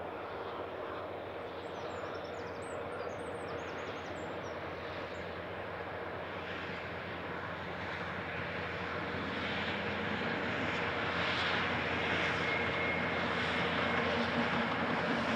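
An approaching train's locomotive engine, a steady drone that grows steadily louder, with birds chirping briefly in the first few seconds.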